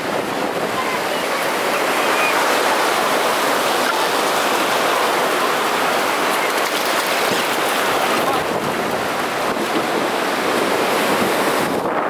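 Surf breaking and washing up a sandy beach, a steady rushing noise with wind buffeting the microphone.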